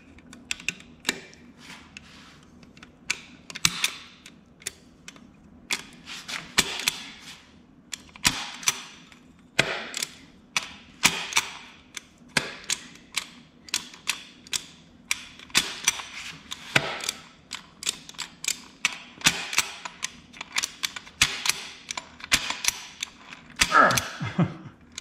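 Bursts of rapid metallic clicking and short scraping strokes, about one burst a second, from hand work on a freshly reassembled Honda TRX200SX engine case and gearbox.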